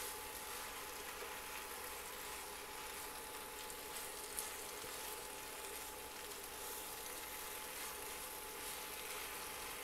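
Bow-tie pasta in tomato sauce simmering with a soft, steady sizzle in a frying pan on an induction cooktop as it is stirred with a silicone spatula, with one light tap about four seconds in.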